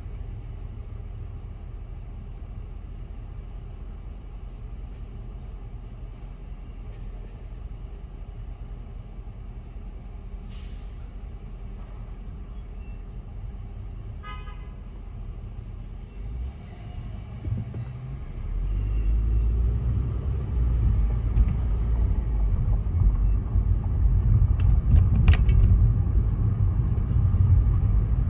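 Car idling at a stop light, heard from inside the cabin as a steady low rumble. About two-thirds of the way through, the car pulls away, and the low rumble of engine and road gets clearly louder as it drives on. A short hiss comes about ten seconds in.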